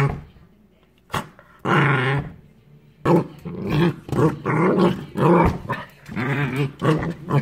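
Corgi puppy growling in a run of short play growls while pawing and mouthing at a door, with one sharp knock about a second in.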